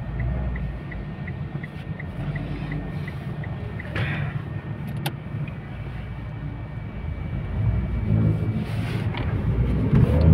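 Car engine and road noise heard from inside the cabin while driving. For the first few seconds there is an even ticking, about three ticks a second, typical of the turn-signal indicator. The engine rumble grows louder near the end as the car picks up speed.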